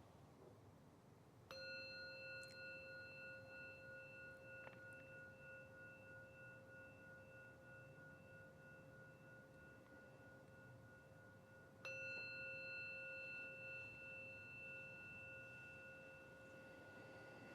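A meditation bell is struck twice, about ten seconds apart. Each strike rings on with several steady, slowly wavering tones that fade gradually, marking the end of the sitting meditation.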